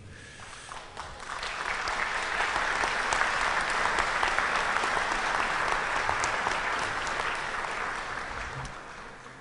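Audience applauding. It swells about a second in, holds steady, and dies away near the end.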